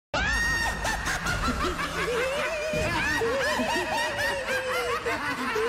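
Studio audience and hosts laughing together, many voices overlapping. It starts abruptly and stays loud and steady throughout.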